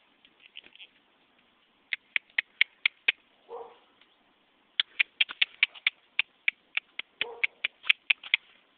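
Runs of sharp tongue clicks, about five a second, of the kind used to urge a horse on. Two short lower sounds come between them, about three and a half and seven seconds in.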